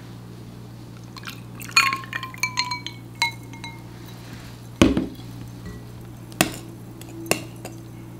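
Ice cubes clinking and ringing against a glass as cold milk is poured over them, a quick run of clinks in the first few seconds. Then a heavy thump about five seconds in and two sharp knocks near the end.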